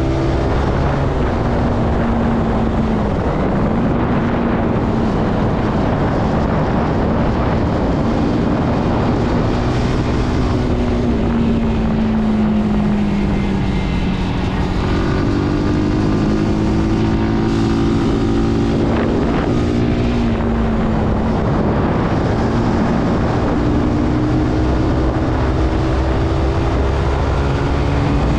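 Zontes C125's single-cylinder 125cc engine running under way, its pitch rising and falling again and again as the throttle opens and closes, over a steady rush of wind.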